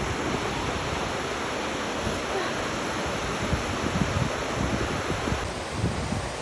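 Steady wash of ocean surf, a continuous hiss of breaking waves, with wind gusting on the microphone.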